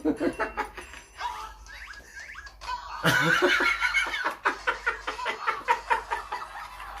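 Hearty laughter in quick repeated ha-ha pulses, dying down after the first second and then bursting out again, loudest about three seconds in.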